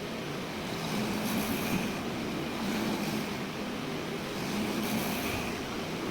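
Steady low rumble with an even hiss, the running noise of a moving vehicle.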